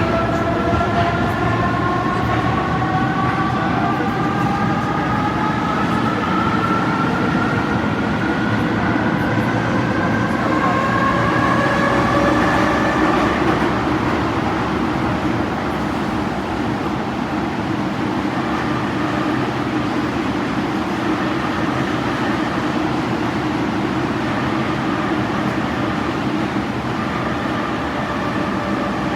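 MF 67 metro train's traction motors whining, the several tones rising steadily in pitch as the train accelerates for about the first half, then dropping away into a steady rumble of the train running on the rails; a fainter whine returns near the end.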